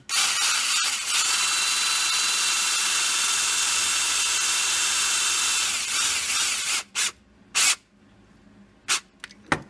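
Drill driving a sheet-metal screw into the old, leaking PTO-side crankshaft seal so the seal can be pried out. It runs steadily for about seven seconds, then gives four short bursts near the end.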